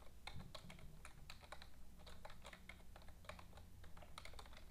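Computer keyboard being typed on: quick, irregular key clicks, faint.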